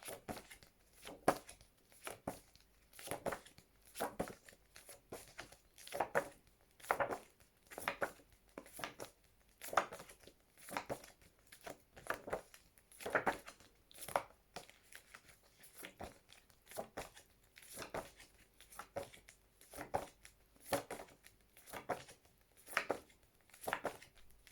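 Paper phonics flashcards being flicked over one after another, a short papery rustle or flick about once or twice a second.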